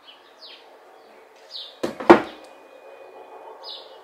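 Two sharp knocks close together about two seconds in, the second louder, like a cupboard or door bumping shut. A few short, high, falling bird chirps sound faintly around them.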